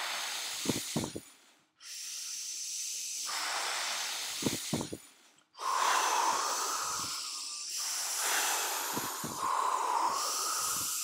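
Breathy, wind-like blowing in three long gusts that break off twice, with a few low thumps of air hitting the microphone.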